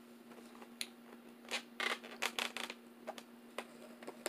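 Fingers tearing injera and picking up food from a foam takeout container: a string of short rustling, tearing sounds, busiest in the middle.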